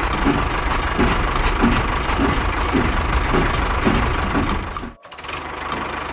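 Tractor engine running with a steady chugging beat about twice a second. It cuts out about five seconds in and comes back quieter and smoother.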